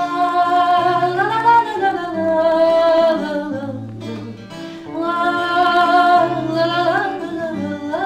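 A woman singing a bard-style song with long held notes, accompanying herself on an acoustic guitar.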